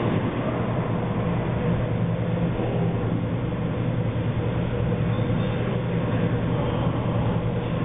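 Steady low hum with a few constant low tones under an even hiss; no ball strikes.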